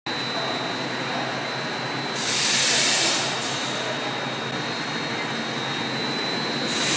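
Rotary label die-cutting and slitting machine running, with a steady mechanical hum and a thin high whine. A louder rushing hiss swells about two seconds in, lasts about a second, and comes again near the end.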